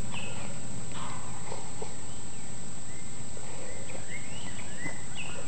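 Outdoor night ambience: a steady high insect trill with short scattered chirps over a constant hiss. No firework goes off.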